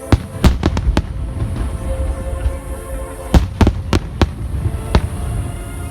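Aerial firework shells bursting in sharp bangs: a quick run of four in the first second, another four around three and a half to four seconds in, and a single one near five seconds, over a low rumble and music with held notes.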